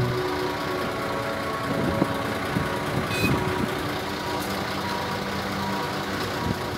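Forklift engine running while it lifts a bundle of steel rebar, with a faint repeating beep and a few metallic knocks of the bars around the middle.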